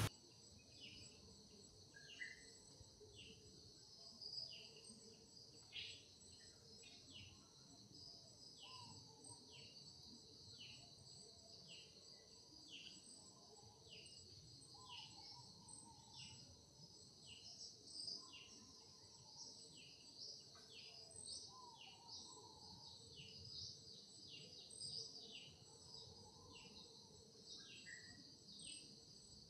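Faint forest ambience: a steady high insect drone, with a bird repeating short falling chirps a little more than once a second.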